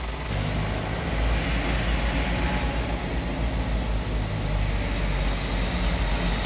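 Motor vehicle traffic in a jam: a vehicle engine running low and steady, getting louder a moment in, under general road noise.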